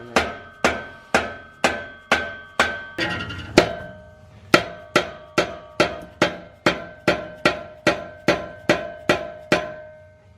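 Repeated hammer blows, about two a second, on a stainless steel exhaust pipe, driving a cat-back section further onto its joint; the pipe rings after each strike.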